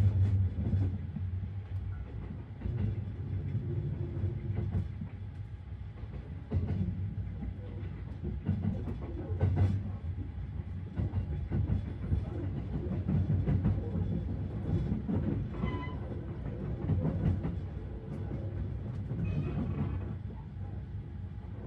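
Sunrise Express sleeper train running, heard from inside a sleeper compartment: a steady low rumble with scattered irregular clicks and knocks from the running gear. The rumble is loudest at the very start.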